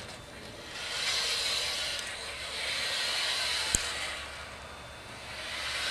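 Panel track with two wheeled gliders per panel rolling and rubbing along the track as the panels are drawn across by the wand, a rushing, rumbling hiss that swells and eases. There is one sharp click partway through.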